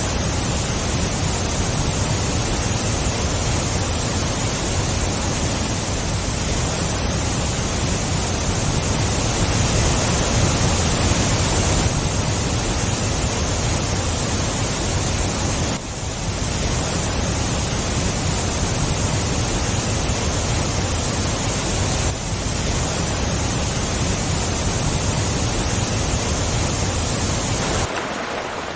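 Waterfall rushing steadily, a dense even hiss of falling water with a low rumble beneath, briefly dipping twice in the middle; near the end the low rumble drops away.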